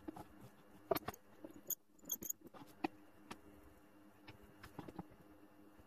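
Faint, scattered clicks and taps of hand-tool and workpiece handling: a metal combination square and scribe set against a wooden block, then the block placed on the drill press's metal table.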